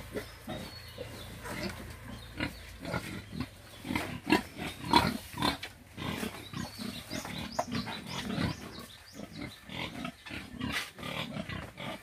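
Pigs grunting in a run of short, irregular calls.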